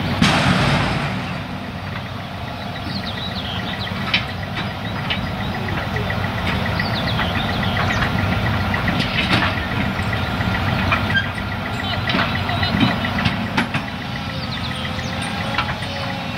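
Volvo tracked excavator's diesel engine running steadily as it picks up and lifts a whole peat wagon, with a few sharp metal clanks along the way.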